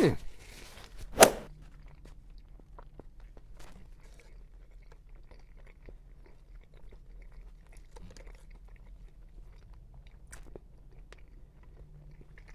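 A person chewing a mouthful of crispy fried chicken sandwich with bacon, with faint scattered crunches. A single sharp click about a second in is the loudest sound.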